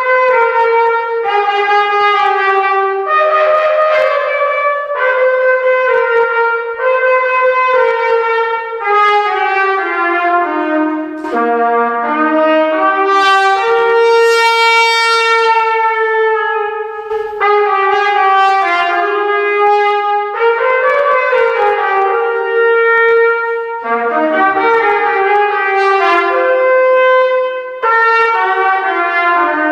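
Solo trumpet playing a melody, one note at a time, in phrases with short breaks between them.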